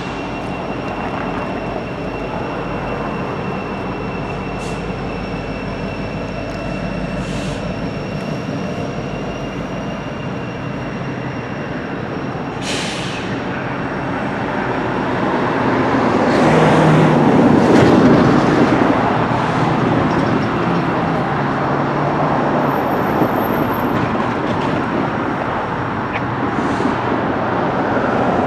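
EMD SD70ACe diesel-electric locomotives moving slowly in reverse, their diesels running steadily and growing louder through the middle as they pass closest. A steady high whine stops about twelve seconds in, and a few short hisses cut in now and then.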